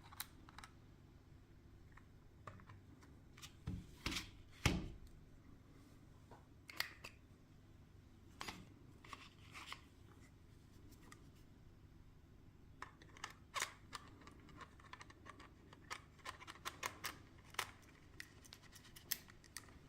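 Small sharp clicks and light scraping of camera lens parts being handled and worked apart, irregular and in small clusters, busiest about four seconds in and again in the second half.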